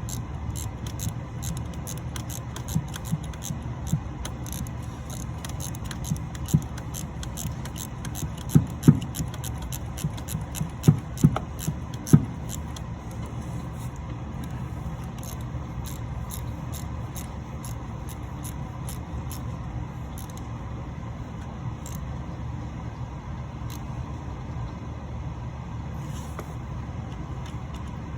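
Hand ratchet clicking and metal tools knocking as the new oil pressure sending unit is tightened down with a socket on an extension, over a steady low rumble; a run of sharp knocks comes about 8 to 12 seconds in.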